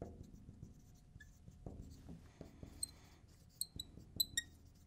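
Marker writing on a lightboard: faint strokes and scratches, with a few short squeaks of the tip near the end.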